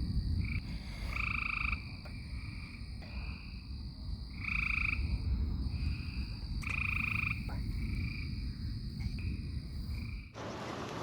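A series of short, steady, high-pitched animal calls, about one a second, over a low rumble. Near the end the sound cuts abruptly to a steady rushing noise.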